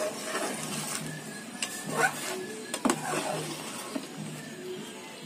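A long steel ladle stirring thick muskmelon halwa in a metal kadai, scraping around the pan with a few sharp clinks against its side.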